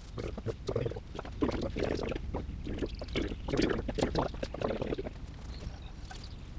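Paint roller and brush working liquid rubber onto the back of a boat carpet: a run of irregular rubbing strokes with small clicks and rustles, easing off near the end.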